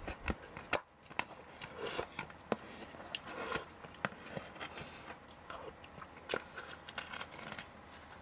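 A person eating hashed beef and rice: irregular wet chewing and lip-smacking clicks, many short sharp ticks scattered throughout.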